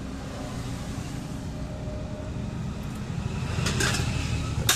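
Road traffic: a steady low motor-vehicle rumble that grows somewhat louder in the second half, with a few short clicks near the end.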